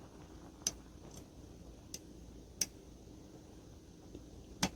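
Sharp metallic clicks from picking a pin-tumbler cylinder lock: a hook pick working the pin stacks under tension, five irregular clicks with the loudest near the end.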